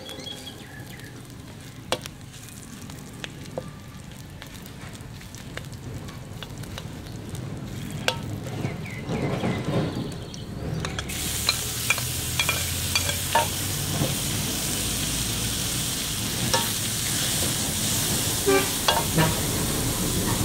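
Metal spatula scraping and tapping in a metal wok as garlic and pork fry. About eleven seconds in, a loud sizzle starts suddenly as raw minced pork goes into the hot fat.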